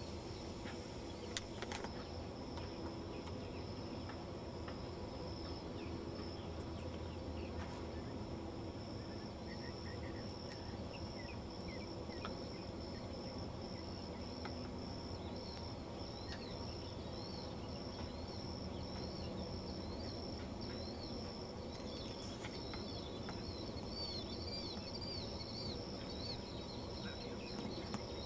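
Outdoor ambience: a steady high-pitched insect trill over a low rumble, with short bird chirps that come more and more often in the second half.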